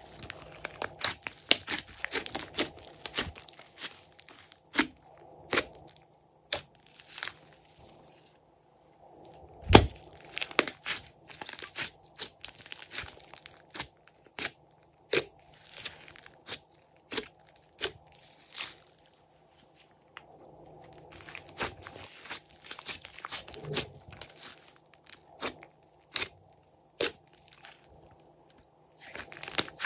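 Hands squishing, pressing and stretching a large lump of glossy slime, giving irregular sharp crackles and pops as trapped air is squeezed out. One pop about ten seconds in is much louder than the rest, and the crackling pauses briefly a few times.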